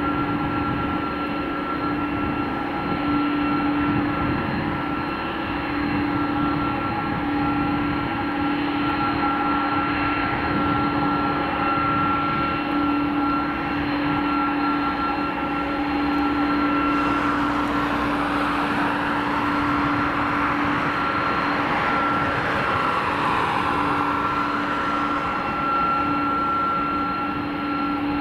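Airbus A300-605R's twin turbofans running at low taxi power: a steady engine whine over a low drone. About two-thirds of the way through, a slowly sweeping, phasing swish rises and falls over the whine as the jet moves closer.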